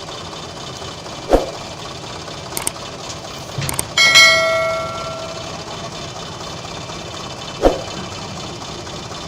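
A piece of metal struck once about four seconds in, with a clang that rings on and fades over about a second. Two short sharp knocks fall before and after it, over a steady low drone of the kind a running engine makes.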